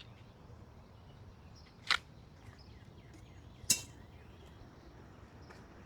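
Two short, sharp clicks about two seconds apart over a faint steady low hum.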